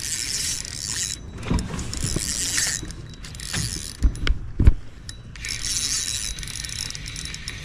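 Spinning fishing reel being cranked in stretches, a whirring mechanical sound, with a few knocks about four seconds in.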